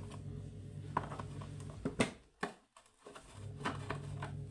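Screwdriver clicking and scraping on the mounting screws of a home theatre subwoofer's woofer as it is unscrewed, with a sharp knock about two seconds in. A steady low hum runs underneath, cutting out for about a second and a half in the middle.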